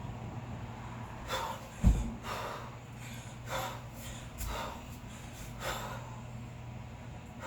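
Hard, forceful breathing from a kettlebell lifter working a double 16 kg long cycle: sharp breaths in and out every half second to a second. A heavy low thud comes about two seconds in and a softer one a couple of seconds later.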